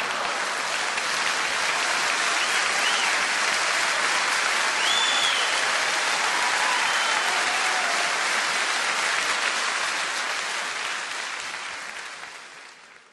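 Live audience applauding steadily, with a few short whistles, before dying away near the end.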